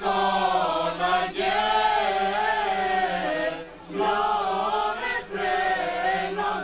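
Choir singing in phrases of held notes, with short pauses between phrases.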